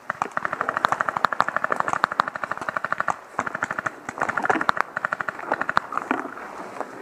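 Paintball markers firing rapid strings of shots, about a dozen a second, with short breaks between strings and a few single shots near the end.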